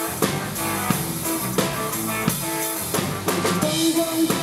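Rock band playing an instrumental passage without singing: a drum kit keeps a steady beat, with bass drum and guitar.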